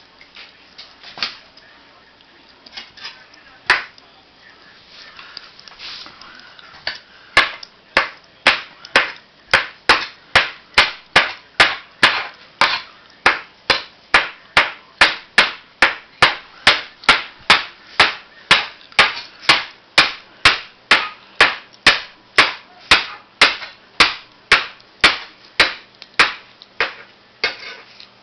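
Kitchen knife chopping mushrooms, each stroke a sharp knock on the hard surface beneath. A few scattered chops at first, then a steady rhythm of about two chops a second from about seven seconds in.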